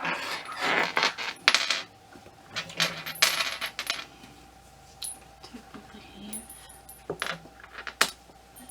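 Handling noise: rustling in bursts, then a few sharp, light metallic clinks, like small metal parts knocking together.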